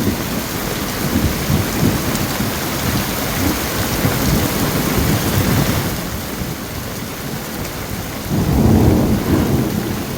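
Heavy thunderstorm rain pouring steadily, heard through a phone held out of a window in the rain. A louder low rumble swells up near the end.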